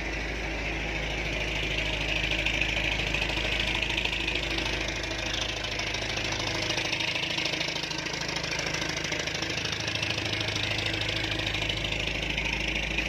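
A tugboat's engine running steadily: an even low hum with a hiss above it.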